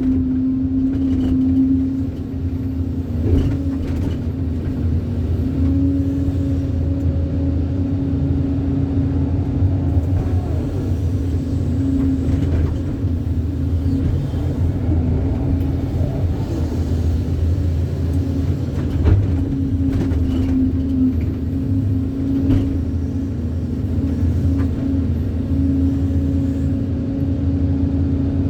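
Excavator's diesel engine running steadily as it digs and loads soil, with its hum wavering slightly under load and a few short knocks.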